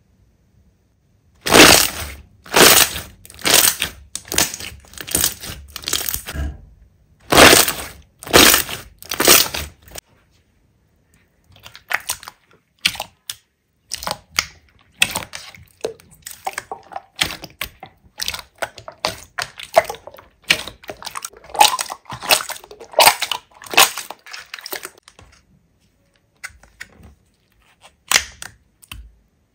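Slime being squeezed and pressed by hand: a run of loud, sharp crackling presses about once a second, then after a short pause many quieter sticky clicks and pops that thin out near the end.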